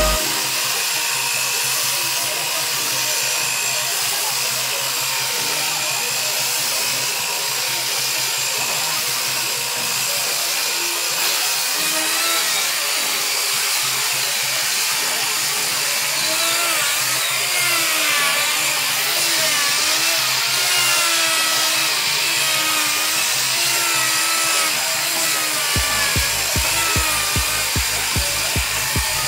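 Handheld electric belt sander running steadily while being pushed across a suar wood slab. A steady whine and sanding hiss, with an electronic music beat coming back in near the end.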